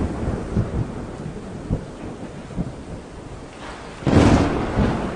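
Thunder rumbling over steady rain, with a sharp, loud thunderclap about four seconds in that rolls on into further rumbling.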